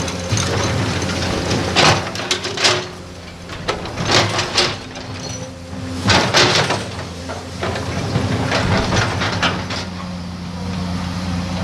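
Diesel engine of heavy earthmoving machinery running steadily, with repeated bursts of scraping and clattering of sand and rock, strongest about two, four and six seconds in.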